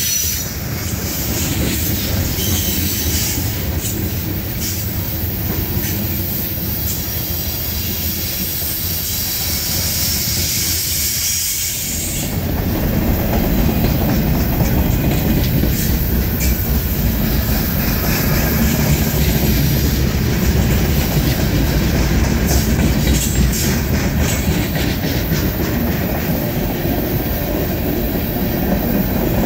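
Freight cars of a CSX manifest train rolling past close by: a steady rumble of steel wheels on the rails that grows louder about twelve seconds in.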